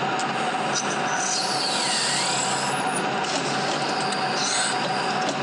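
Small lathe running while a twist drill bores into a spinning brass workpiece: a steady machine hum with a high squeal from the cut that dips in pitch and climbs again, then a second, shorter squeal near the end.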